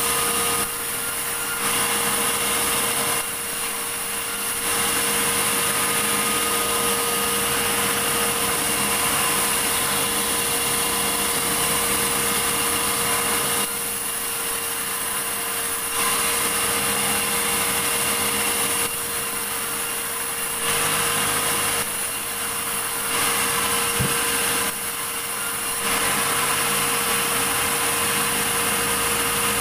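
Sawmill saw running and cutting a large medang log, a steady mechanical hum with a constant tone, growing louder and a little quieter again every few seconds.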